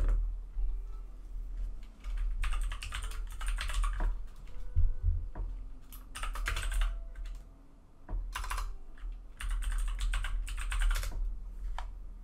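Typing on a computer keyboard in several quick bursts with short pauses between them: a web search being entered.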